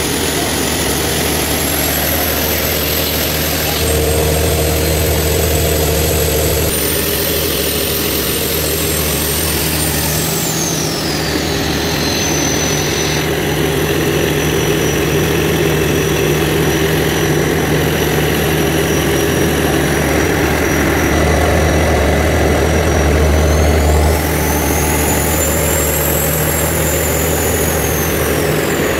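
Large Cummins diesel generator engine running steadily with a deep hum. A high whine above it slides down in pitch, and later rises and falls again. The sound shifts abruptly several times.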